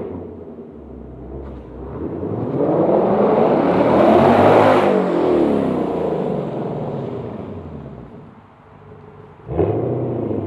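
2024 Ford Mustang GT's V8 exhaust, heard from the trunk, revving under acceleration. It swells to its loudest about four to five seconds in, then eases off and falls away. It jumps back up abruptly near the end.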